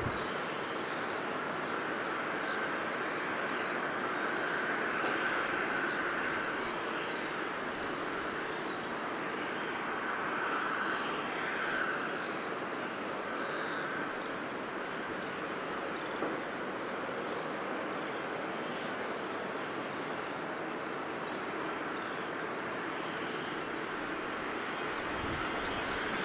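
Steady noise of distant jet aircraft around the airport, swelling and easing slowly, with faint high chirps over it.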